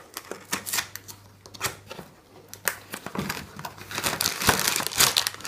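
Cardboard box being opened by hand: the end flap is pulled open and the packing worked out, with rustling, scraping and small clicks that grow busier in the second half.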